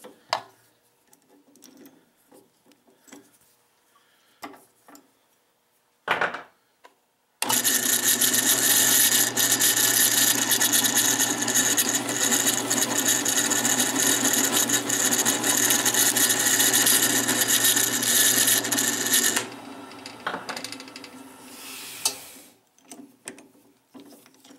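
Drill press running as a 1/4 inch bit drills a hole through a wooden blank: a loud steady motor sound for about twelve seconds starting about seven seconds in, then running down more quietly for a few seconds. Before it, a few light clicks and knocks.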